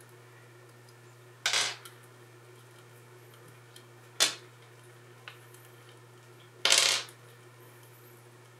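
Small metal screws and side-mount parts from a hard drive clinking as they are set down on a desk: three short clatters, spread a few seconds apart, over a faint steady low hum.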